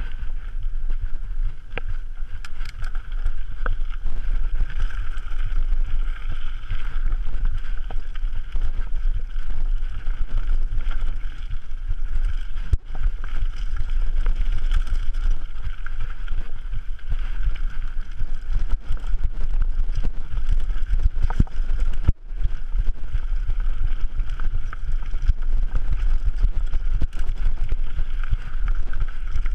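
Mountain bike riding down forest singletrack, heard through a bike- or helmet-mounted action camera: steady wind noise on the microphone over the rumble of tyres on dirt, with scattered knocks and rattles as the bike goes over roots and rocks.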